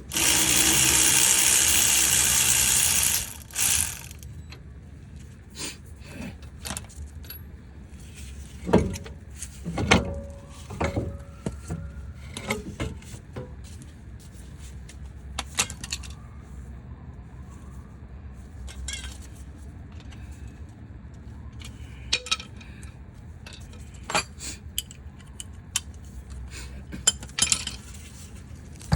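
Metal tools and bolts clinking and knocking in scattered single hits, preceded by a loud, even rush of noise lasting about three seconds at the start.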